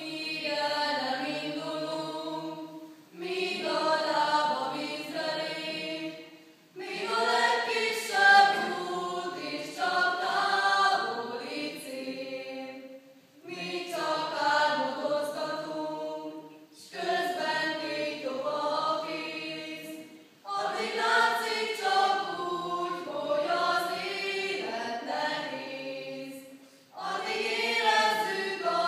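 Mixed choir of young men and women singing together, in phrases of three to four seconds with brief pauses for breath between them.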